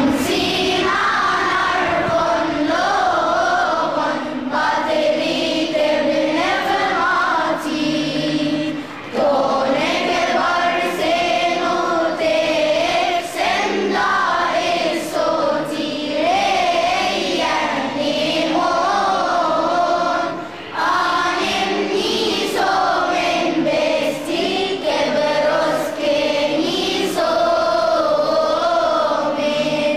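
A children's choir singing a church hymn together, with brief breaks in the singing about nine and twenty-one seconds in.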